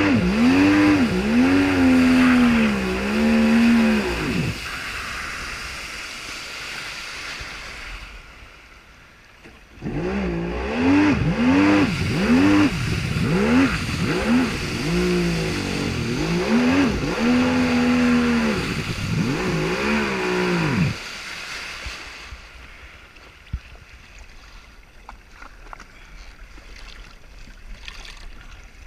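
Jet ski engine revved in short repeated blips, its pitch rising and falling about once a second, stopping about four seconds in. It starts again about ten seconds in with more blips and cuts off suddenly about twenty-one seconds in, a failing engine that will not keep running, leaving only a low wash of noise.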